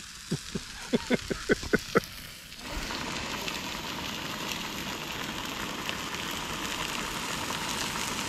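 A run of about eight light taps, then, from near the three-second mark, a steady sizzle of homemade sausages frying in a pan on a camp stove.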